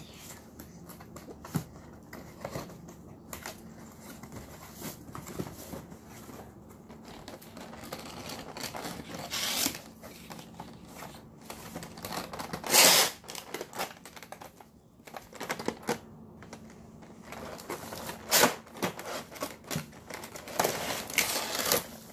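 Cardboard box and clear plastic blister tray of board-game miniatures being handled: irregular scraping, rustling and crinkling of the packaging, with the loudest burst a little past halfway.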